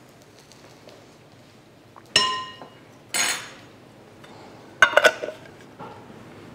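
Kitchen dishes and utensils clinking: a sharp ringing clink about two seconds in, another a second later, and a quick cluster of clinks about five seconds in.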